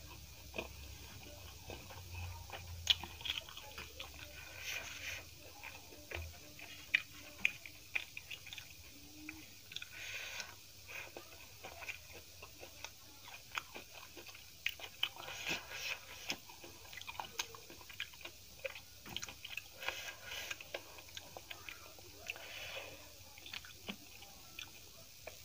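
Close-miked chewing of a large momo, with irregular short mouth smacks and clicks.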